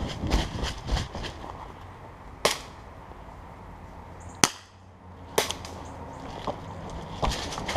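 Airsoft guns firing: sharp snapping shots, a quick cluster in the first second, then single shots every second or two.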